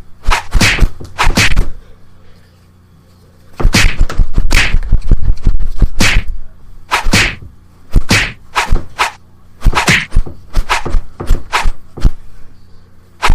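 Fight sound effects: punch whacks and smacks, a quick run of hits, a pause of about a second and a half, then more hits, some in tight clusters and some about half a second apart.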